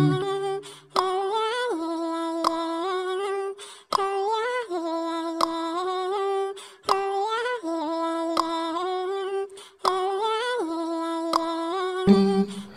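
Background music: a wordless hummed vocal melody with no beat, repeating the same short phrase about every three seconds.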